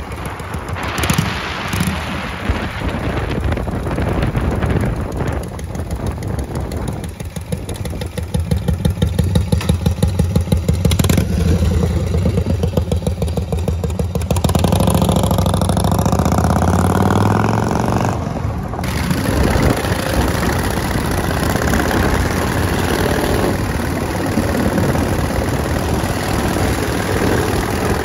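1970 Harley-Davidson Shovelhead's 74-inch V-twin engine running as the bike is ridden, its exhaust pulsing at low revs, then revving up and easing off. The sound changes abruptly about two-thirds of the way through.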